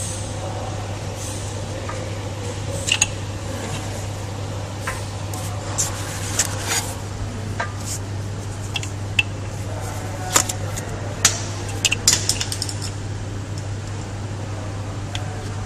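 Metal hand tools clinking and tapping in irregular sharp knocks while working on a car engine, over a steady low hum.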